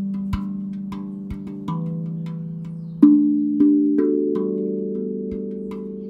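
Steel tongue drum played with the fingertips: single notes struck every second or so, each ringing on long and overlapping the next in a slow, calm melody. The strongest strikes come about three and four seconds in.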